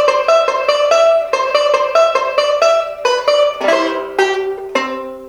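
A 1927 Bacon Silver Bell No.4 tenor banjo picking a quick ragtime melody, then about three and a half seconds in, three strummed closing chords that ring out and fade.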